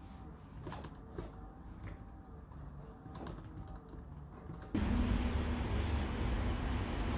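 Typing on a computer keyboard: irregular, light key clicks. About two-thirds of the way through it cuts abruptly to louder, steady city street traffic with a low engine hum.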